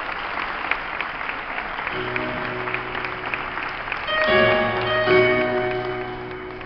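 Audience applauding, the clapping dying away as a song's instrumental intro begins about two seconds in. The music swells with sustained chords about four seconds in.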